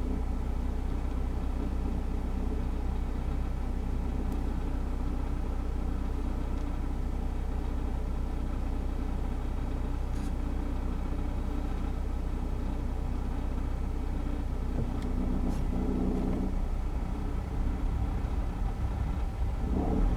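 2006 Honda Civic's R18A1 1.8-litre four-cylinder engine idling steadily after a cold start, with a short extra pitched hum joining briefly near the end.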